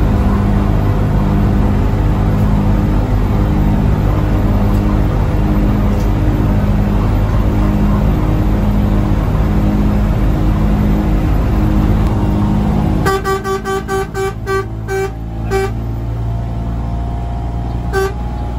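Inside a coach, the diesel engine drones steadily. About two-thirds of the way through, the bus horn sounds a rapid string of about nine short toots, then one more toot near the end, warning the truck the bus is overtaking.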